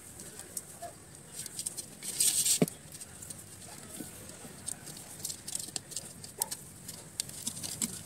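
Insulated electric wire rubbing, scraping and clicking against a painted clay pot as it is wound and tied around the pot by hand. A louder rasp a little over two seconds in ends in a sharp knock.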